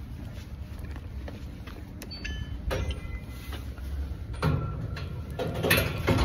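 Knocks and sliding scrapes from flat-pack desk parts being handled, with a short squeak a little over two seconds in and the loudest clatter near the end.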